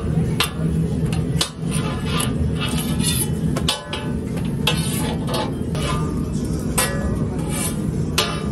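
Metal spatulas and a steel press plate clanking and scraping on a flat steel griddle while toast is pressed and cut: a quick, irregular series of sharp metallic knocks, some ringing briefly.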